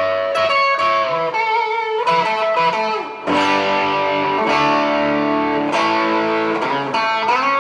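Epiphone ET270 electric guitar with 1960s EKO pickups played through a 5F4 amplifier with light overdrive, compression and reverb, the treble rolled fully off and a .022 capacitor switched in series with the pickup, giving a very nasal tone. A lead line of bent, wavering notes, then held chords from about three seconds in.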